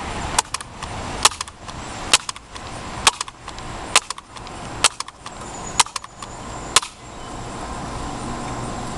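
A Bear River Sportsman 900 multi-pump air rifle being pumped about eight times, roughly one stroke a second. Each stroke builds to a sharp click as the pump lever closes.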